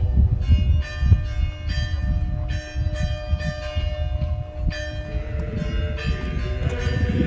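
Church bells ringing, struck in quick succession at about two or three strokes a second, over a low rumble.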